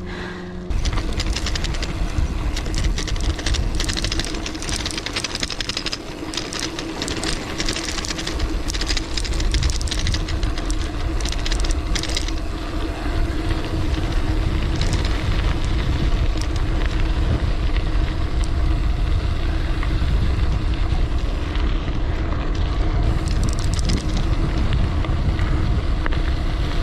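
Gravel bike coasting fast downhill on a dirt trail: the Terravail Rutland 650b × 2.1 tyres crunch and crackle over loose dirt and small stones under heavy wind rumble on the camera's microphone. It starts suddenly about a second in, and the crackle is densest in the first half.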